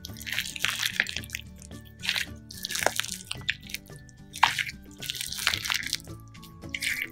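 Fishbowl slime, clear slime packed with beads, being kneaded and squeezed by hands, giving irregular wet squishes and bead crackles in quick bursts. Background music plays under it.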